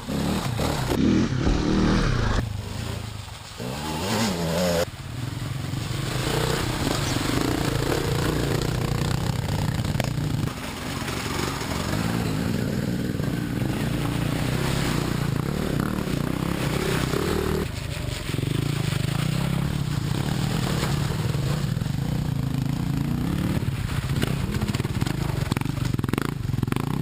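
Dirt bike engine running while riding a trail, the pitch shifting with the throttle in the first few seconds and then holding fairly steady, with rattles and scrapes from the ride.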